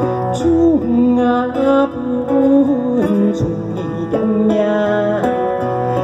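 Live acoustic song: a plucked guitar accompanying a man singing a slow melody with sliding notes.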